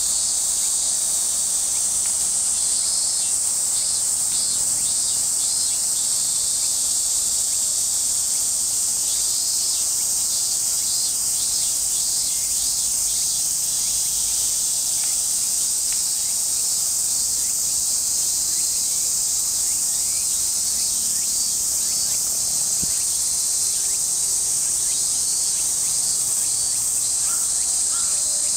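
A steady, high-pitched chorus of cicadas singing in the trees.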